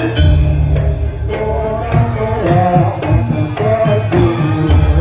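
Live Javanese gamelan music: hand drums beat a rhythm over struck metallophone notes, with a steady deep low tone underneath.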